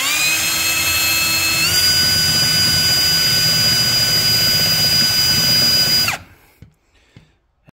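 Electric drill spinning a twist bit held sideways against a plastic trim cover, cutting a small notch into its edge. The motor whine climbs as it spins up, steps up in speed about a second and a half in, holds steady over the rough sound of the bit grinding plastic, and cuts off about six seconds in.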